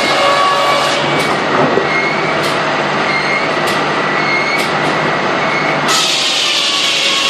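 Steam sawmill machinery running: a steady mechanical noise with a few fixed tones and a sharp click about once a second. Near the end a louder, hissier noise sets in.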